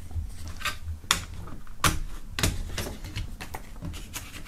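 Plastic CD jewel case being handled and opened on a wooden table: a series of sharp clicks and taps, the loudest about two seconds in.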